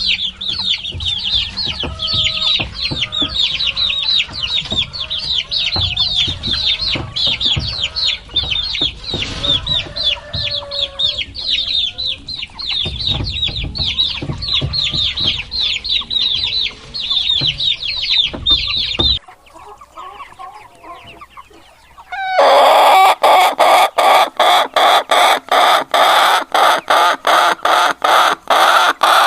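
Chickens: a brood of chicks peeping densely and high-pitched, with hens clucking lower beneath them. After an abrupt change about two-thirds of the way in, a short quieter stretch of clucks, then a loud, rapid, rhythmic clucking call repeating about three times a second.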